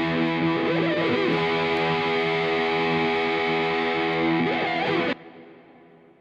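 Background music with distorted electric guitar holding a sustained chord, with a couple of bent notes, cut off sharply about five seconds in and leaving a fading ring-out.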